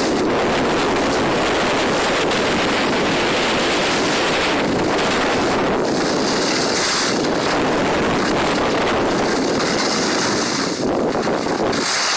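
Steady rush of wind over the microphone of a camera carried by a skier moving downhill, mixed with the hiss of skis sliding over packed snow.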